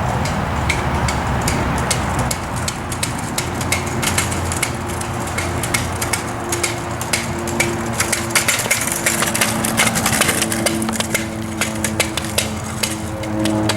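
Train engine running with a steady low rumble, with many irregular clicks and knocks over it. Two steady tones come in about four seconds in.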